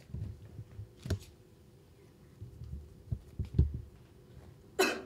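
Soft low thumps and a sharp click from movement, then near the end one short, loud cough.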